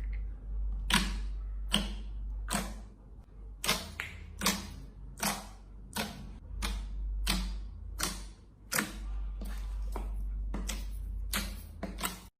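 Slime being squeezed and worked by hand, giving sharp, crisp pops or clicks about once or twice a second over a low steady hum.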